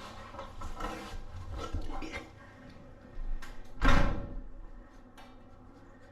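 A few short knocks and scrapes, then one loud thump about four seconds in.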